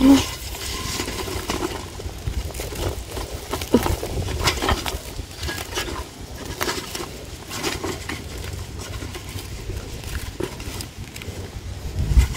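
Close handling noise: a nylon mesh bag rustling and scrunching against a plastic bucket, with scattered light clicks and low bumps as hands work the bag's mouth.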